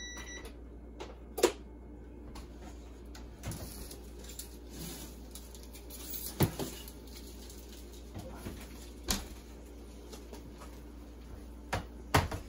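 Scattered knocks and clanks of kitchen handling, the loudest about a second and a half in, about halfway, and near the end, when a foil-lined metal baking sheet is set down on a cork trivet, over a low steady hum.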